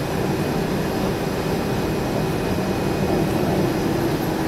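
Batara Kresna diesel railbus running steadily, heard from inside the passenger car: an even engine hum mixed with wheel and track noise.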